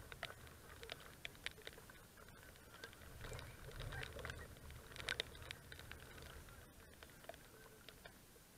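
Light rain pattering: scattered, irregular raindrop ticks close by, with a faint low rumble that swells briefly about three to four and a half seconds in.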